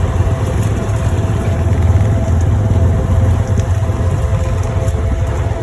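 A motor engine running steadily with a low, even rumble.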